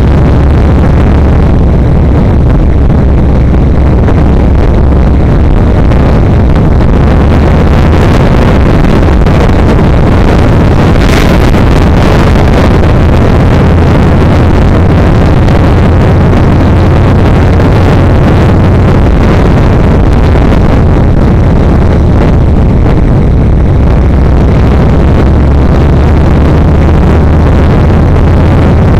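Yamaha XVS1300's V-twin engine running steadily while riding on the road, loud, with wind rushing over the microphone.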